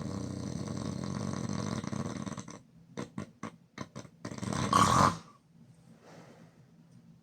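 A person snoring loudly through an open mouth: one long snore of about three seconds. It is followed by a few brief clicks and then a short, louder breath about five seconds in.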